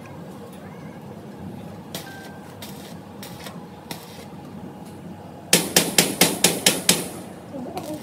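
A hammer striking the steel frame of a welded wire-mesh cage: a quick run of about eight sharp metallic blows, about five a second, a little after halfway through. Before them there are only a few faint clicks of handling the metal.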